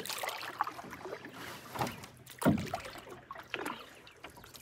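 Canoe paddle strokes through lake water, with water swishing and lapping at the hull; one stroke about two and a half seconds in is the loudest.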